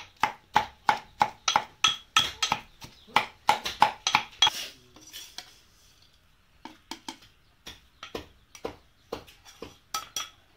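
Metal pestle pounding in a metal mortar, about three ringing strikes a second, crushing dried fish. About halfway through the pounding stops, and a metal spoon clinks and scrapes against a metal wok and the mortar a few times.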